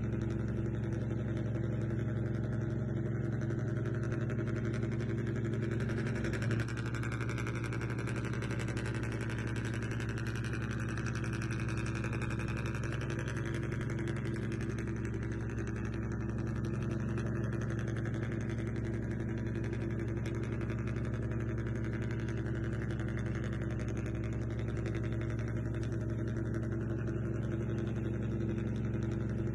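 A remote-control model vehicle running with a steady, even engine-like drone, with a brief knock about six seconds in.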